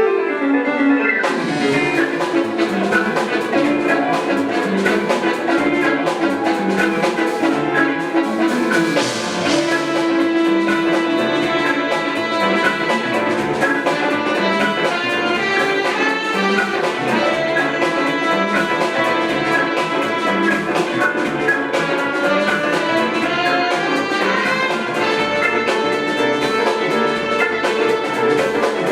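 Live jazz-fusion band playing, with sustained chords and a drum kit that comes in about a second and a half in, then keeps a steady beat.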